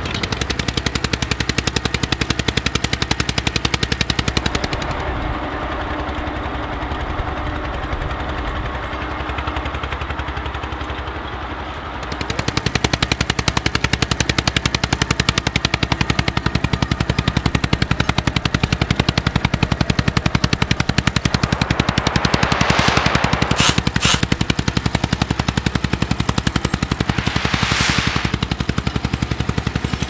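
Allgaier A22's single-cylinder diesel engine working under load as it pulls a two-furrow plough, its exhaust a rapid, even string of beats. It gets louder about twelve seconds in, and two short rushes of hiss come in the last third.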